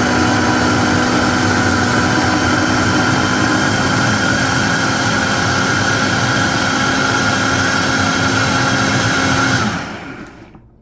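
Vitamix blender motor running steadily at high speed, blending onion, garlic, ginger, jalapeño and spices with olive oil into a marinade; it is switched off near the end and the sound dies away within about a second.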